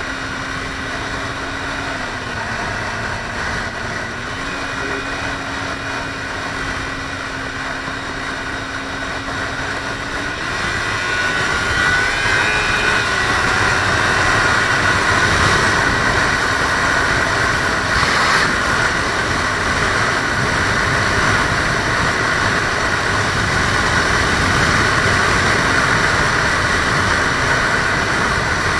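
Kawasaki Ninja 300 parallel-twin engine running at road speed, with wind rushing on the microphone. The engine note dips briefly a few seconds in, then climbs about ten seconds in, and the wind noise grows louder after that.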